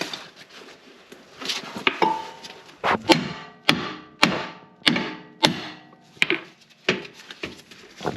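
Hammer blows on steel suspension parts, driving a lower control arm loose: a string of about six sharp, ringing metal strikes a little over half a second apart, with a few lighter knocks before them.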